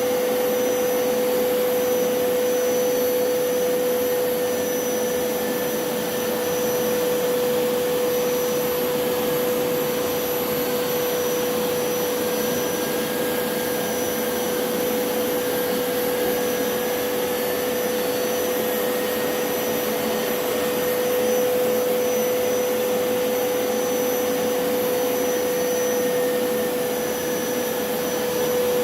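Hoover PowerScrub Elite carpet cleaner running steadily on carpet: a constant mid-pitched motor whine over an even rushing suction noise, swelling slightly now and then.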